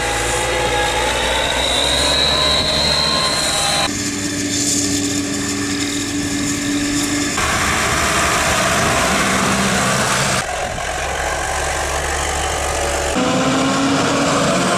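New Holland tractor engines and a forage harvester running, heard in short clips that change abruptly about every three to four seconds. A steady high whine runs through the first four seconds.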